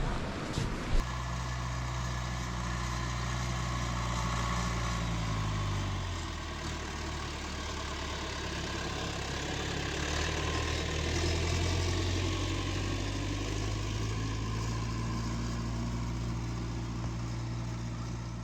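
An engine running steadily, its pitch dropping about five seconds in and then slowly climbing again.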